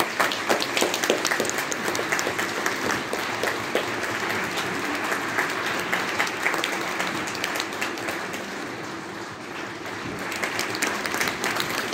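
Concert audience applauding, many hands clapping at once in a steady clatter that dips a little about nine seconds in and swells again near the end.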